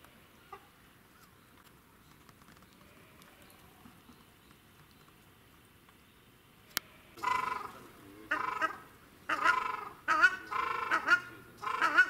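Waterfowl giving loud, repeated honking calls, one to two a second, starting about seven seconds in just after a single sharp click. Before that there is only faint outdoor background.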